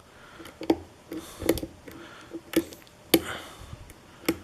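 Lock pick working the pin stack of a Kwikset-based challenge lock: about five sharp, uneven metallic clicks over faint scraping. These are pins setting and dropping under tension, the 'thready' clicks of serrated pins.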